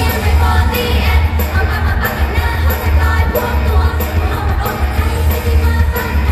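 Live Thai idol-pop performance: female voices singing into handheld microphones over loud pop backing music with a heavy bass beat, heard through the concert sound system.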